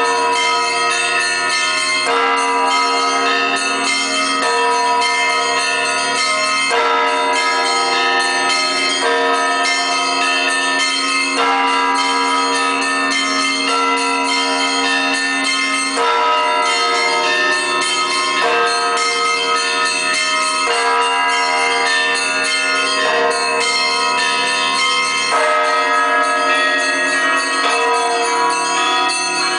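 Orthodox cathedral bells rung in a continuous peal (zvon). A set of bells of different pitches is struck over and over in a steady pattern, and their tones overlap and ring on without a break.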